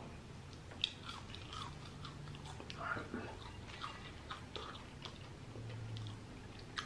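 Close-miked chewing of crispy french fries: soft, irregular crunches and mouth clicks, with one sharper crunch about a second in.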